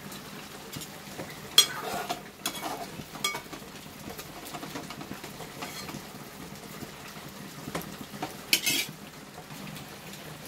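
Metal spoon knocking and scraping against an aluminium cooking pot while a simmering curry is stirred: a sharp clink about one and a half seconds in, a couple more soon after, and a short clatter near the end, over the curry's low steady simmer.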